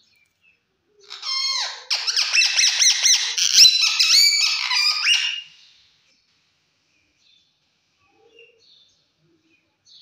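Rose-ringed parakeet giving a loud, fast run of chattering, wavering high calls for about four seconds, starting with a falling call and then many quick repeated notes. It stops abruptly, and only a few faint chirps follow.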